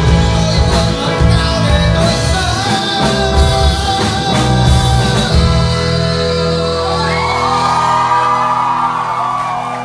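Rock band playing live with a singer shouting and singing into the microphone. About five and a half seconds in the drums and bass drop out and the band holds a sustained closing chord while the voice carries on over it.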